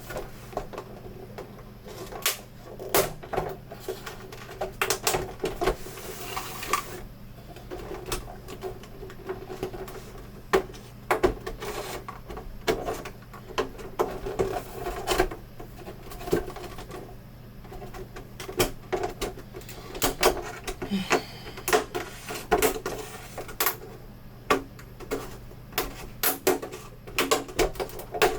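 A monitor's plastic back cover being handled and unclipped: irregular clicks, taps and knocks of plastic clips and panel edges, with a short scraping hiss about six seconds in.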